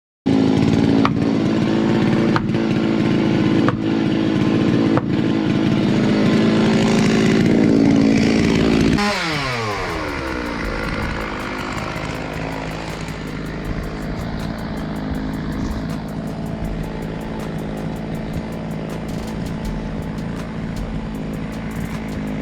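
Two-stroke chainsaw running at high throttle for about nine seconds, then let off so the engine winds down and settles to idle. Faint regular clicks sound about every second and a half during the high-throttle part.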